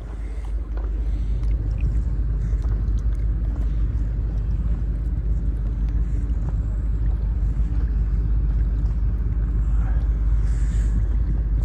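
A motorboat engine running steadily with a low rumble, a little louder from about a second in.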